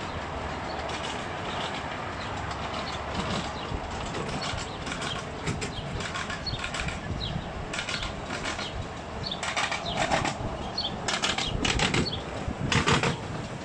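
Miniature ride-on train rolling along its track: a steady low rumble of wheels on rail, with irregular clacks and rattles as the wheels cross rail joints, loudest in clusters late on.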